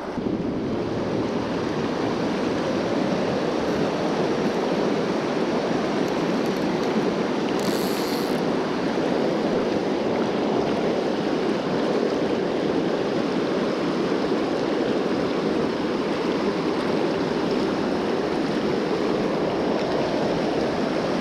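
Fast river water rushing over rocks in a shallow riffle: a steady, loud rush close to the microphone, with a short high buzz about eight seconds in.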